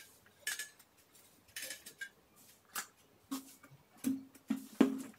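Stainless steel idli plates being handled and greased: light scrapes and clicks, then several sharper metallic knocks in the second half, each with a brief low ring.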